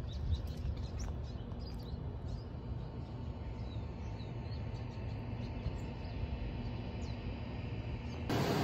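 Small birds chirping in short, scattered high calls over a steady low rumble of outdoor background noise. Near the end the sound cuts abruptly to a louder, denser steady noise.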